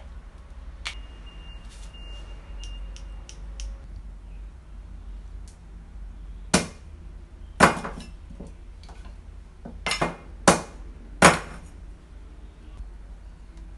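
Cleaver chopping sugarcane on a wooden cutting board: five heavy chops in the second half, irregularly spaced. Lighter clicks and a short ringing clink come in the first few seconds.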